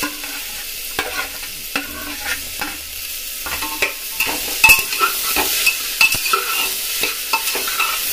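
Chopped vegetables sautéing in a little ghee in an aluminium pressure cooker: a steady sizzle, with a spatula stirring them and clicking and scraping against the pot's metal sides from about a second in.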